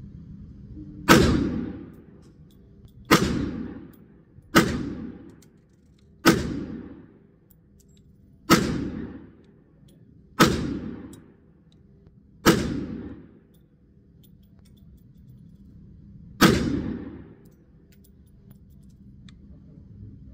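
Eight shots from a Kel-Tec PMR-30 pistol firing Federal .22 Winchester Magnum full metal jacket rounds in slow fire, spaced about one and a half to four seconds apart. Each report rings out briefly in the indoor range.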